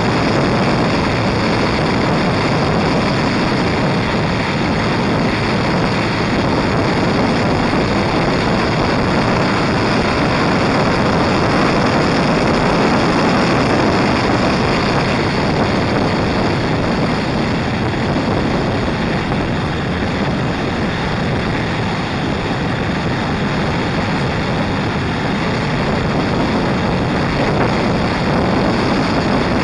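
Steady rush of wind on the microphone of a moving motorcycle, mixed with its engine and tyre noise at a constant cruising speed.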